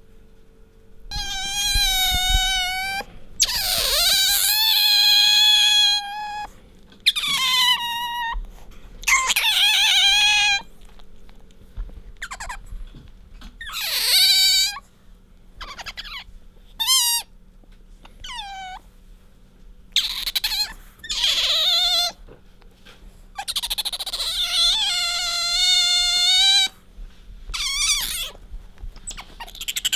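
Asian small-clawed otter squeaking: about a dozen high-pitched calls, some drawn out for two or three seconds with a wavering pitch, others short, with brief pauses between them.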